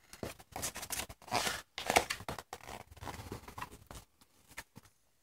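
Pages of a children's picture book being handled and turned by a toddler: irregular soft rustles, scrapes and clicks of stiff paper.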